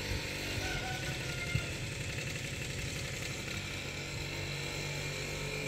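A small engine idling steadily, with a short knock about a second and a half in.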